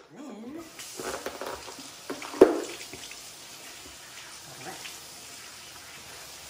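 Kitchen faucet running steadily into the sink, with one sharp knock about two and a half seconds in, the loudest sound.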